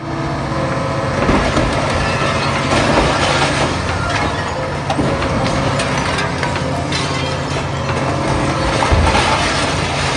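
Kobelco demolition excavator's diesel engine running steadily under load, with repeated cracking and crunching as its attachment tears into a glass entrance and its metal frame.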